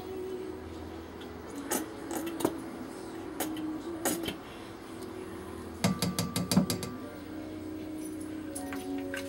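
Light clicks and taps of a measuring spoon and plastic squeeze bottle against a stainless steel mixing bowl as mustard is measured in, with a quick run of about eight taps around six seconds in.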